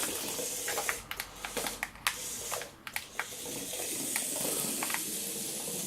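Micro remote-control go-kart running on a hard shop floor: a steady thin whirr from its small electric motor and wheels, with a run of sharp clicks and ticks between about one and three seconds in.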